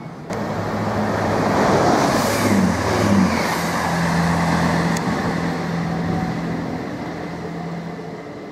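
Class 165 Networker Turbo diesel multiple unit moving through the station: a steady low diesel engine drone with wheel and rail noise, loudest a couple of seconds in and slowly fading toward the end.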